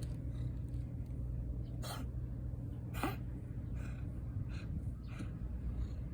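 A cat sneezing in a short run of quick sneezes, the loudest about two and three seconds in, with fainter ones after, over a steady low rumble.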